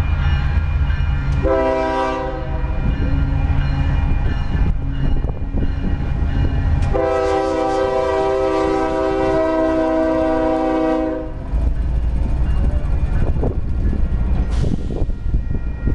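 Union Pacific diesel freight locomotive passing close by, its multi-chime horn sounding a short blast about a second and a half in and then a long blast held for about four seconds, over the rumble of the diesel engine. Afterwards the autorack cars rumble and clatter past on the rails.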